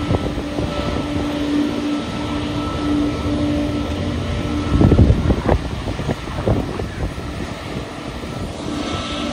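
Jet airliner engines running with a steady hum over a low rumble and a thin high whine. Louder rumbling gusts of wind on the microphone come about five seconds in and again a little later.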